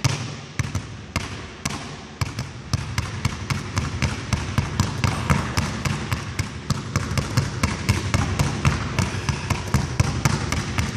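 Two basketballs dribbled at once on a hardwood gym floor: a steady train of sharp bounces, spaced out for the first two seconds, then quickening to a fast, even rhythm of about four to five bounces a second.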